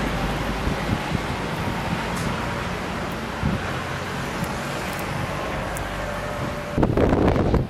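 Storm wind with a steady background of road traffic during a blizzard. Near the end a strong gust buffets the microphone loudly.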